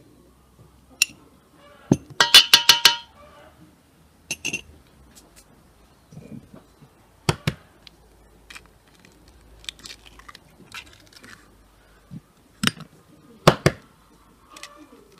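Kitchenware clinking and tapping against a stainless steel mixing bowl as dough is mixed, with a quick run of ringing clinks about two seconds in. Scattered sharp taps follow, and near the end a couple of sharp knocks as an egg is cracked on the bowl.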